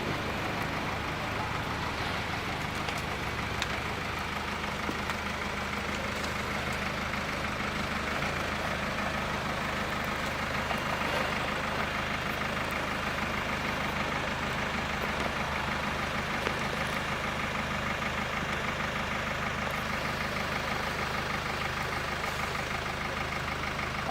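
Mercedes car engine running steadily at low revs as the car is driven slowly up ramps and parked.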